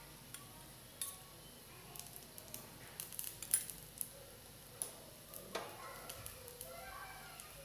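Faint, scattered clicks and light clinks of steel kitchen utensils being handled and set down beside a hot iron tawa.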